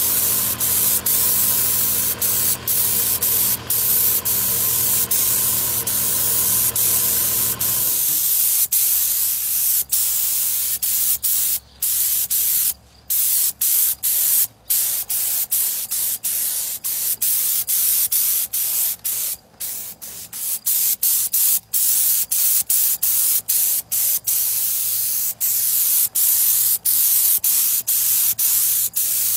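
Paint spray gun hissing steadily while spraying a motorcycle gas tank, with several brief breaks in the spray. A low hum with steady tones runs underneath and stops abruptly about eight seconds in.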